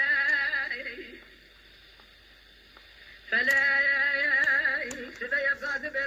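Unaccompanied Kurdish dengbêj singing: a single voice holding long, wavering, ornamented notes. It breaks off about a second in and comes back in after a pause of about two seconds.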